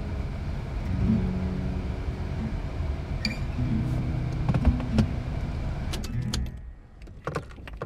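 Steady car noise under soft acoustic guitar music; the car noise drops away about six and a half seconds in, leaving a few light clicks.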